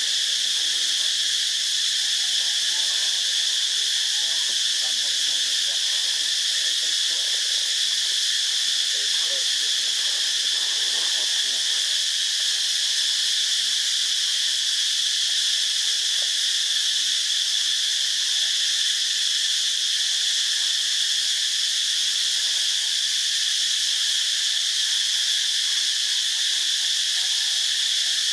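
A chorus of insects droning steadily and high-pitched, without a break.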